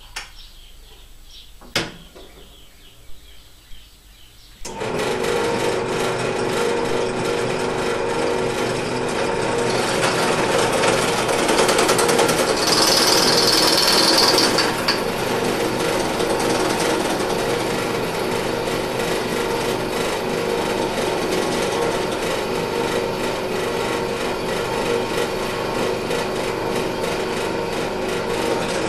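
A few clicks, then a bench drill press starts about five seconds in and runs steadily while its bit drills into a metal nut held in a vise. A brief high-pitched whine rises over the motor near the middle.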